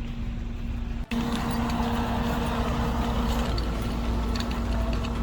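Heavy machinery diesel engine running steadily with a low held hum. It briefly cuts out about a second in, then comes back louder with scattered metallic clinks and rattles.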